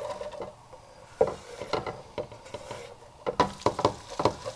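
A utensil stirring onion in a pan with a little oil, scraping along the pan with irregular knocks and clinks, some ringing briefly off the metal.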